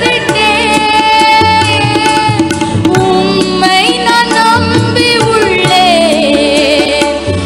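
Music from a Tamil devotional song: a gliding melodic lead with tabla over a steady, repeating beat.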